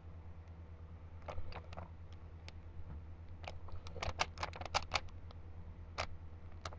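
Rubik's Cube being turned by hand during a solve: irregular plastic clicks and clacks of the layers rotating, with a quick run of turns about four seconds in. A low steady hum lies underneath.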